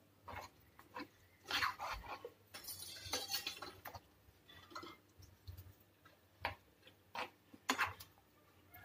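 Spatula scraping and knocking against the pan as thick chutney is stirred, in short irregular strokes, with a longer scrape about three seconds in.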